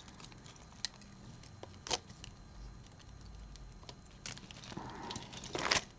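Faint, scattered clicks and light rustling of costume jewelry being handled and sorted, with a busier patch of clicking near the end.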